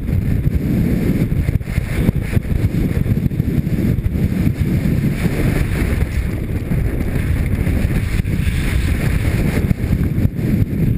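Wind buffeting a helmet-mounted camera's microphone on a fast mountain-bike descent, over the rumble of tyres rolling on loose dirt and gravel, with scattered knocks from the bike over rough ground.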